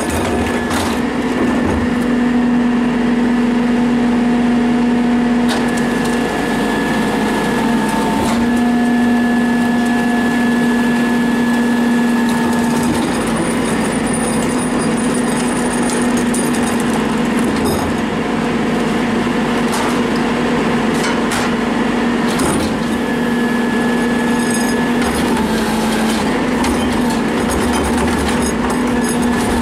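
Isuzu rear-loader garbage truck running its hydraulics, a steady hum and whine from the engine and hydraulic pump that shifts in pitch a few times as the packer blade and cart tipper work under load. A few sharp metal clanks come through now and then.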